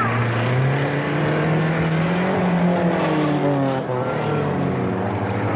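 Several racing cars' engines running hard on a grass track, their pitches rising and falling as they rev and pass, over a steady wash of engine and tyre noise.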